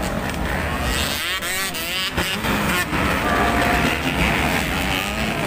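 Motocross dirt bike engines revving as the bikes race, their pitch rising and falling, over a steady background rush of noise.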